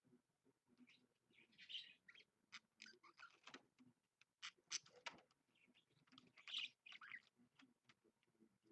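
Budgerigar chattering faintly: short chirps and clicks with brief warbling bursts, the loudest about two seconds in and again near six and a half seconds.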